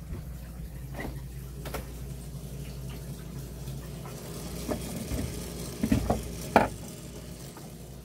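Scattered knocks and clatter of handling over a steady low hum, with a short run of louder clunks around six seconds in.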